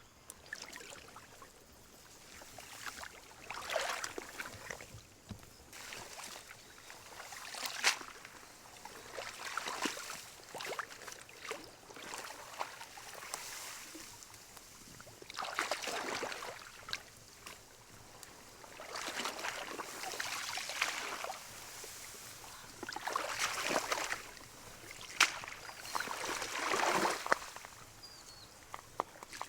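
Water splashing and sloshing in irregular bursts of a second or two, with a few sharp clicks or knocks among them.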